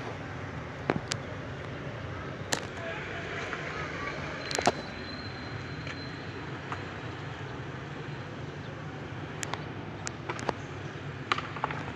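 Outdoor ambience with a steady low rumble of distant traffic, broken by scattered sharp clacks about a second in, then around two and a half, four and a half, nine and a half, ten and a half and eleven and a half seconds.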